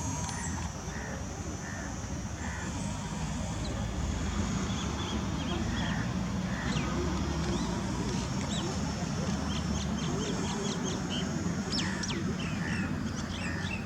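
Wind rumbling on the microphone, with birds chirping and calling throughout, more often near the end, over a faint steady high whine.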